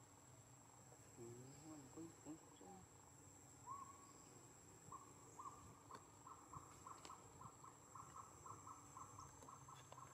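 Faint outdoor ambience with an animal calling. A few low, wavering calls come about a second in. From about four seconds in, a short high note repeats steadily, roughly three times a second.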